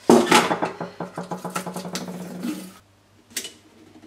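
A blaster-prop barrel tube scraping and rasping with a rapid stutter as it is pushed and worked into the vacuum-formed plastic front of the body for a few seconds, then one light click.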